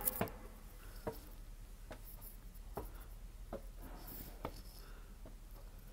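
Footsteps on a wooden marina walkway: about six light knocks, evenly spaced a little under a second apart, over a faint steady hiss.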